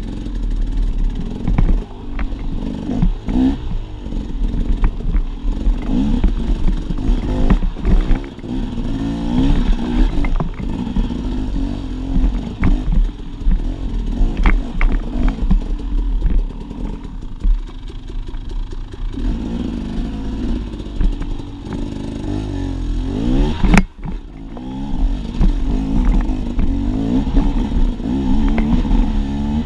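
Dirt bike engine revving up and down as it climbs over rock, with clatter and knocks from the bike bouncing over the rough surface. The sound drops out for an instant about three-quarters of the way through.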